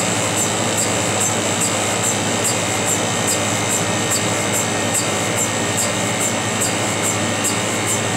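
CTI cryopump system running: a steady mechanical hum and hiss with a light, even tick about two and a half times a second, the rhythm of the cryopump's cold head cycling.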